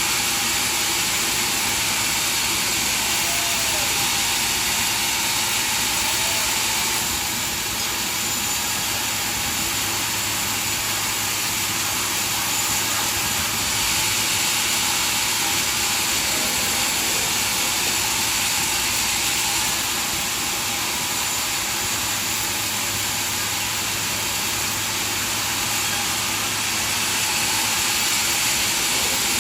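Sawmill machinery running steadily: an even rushing noise over a constant low hum, with no distinct cuts or knocks.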